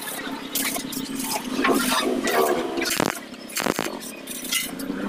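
Metal grinding and scraping on the steel rim of a harvester roller, an irregular rasping hiss, with two sharp knocks a little after the middle.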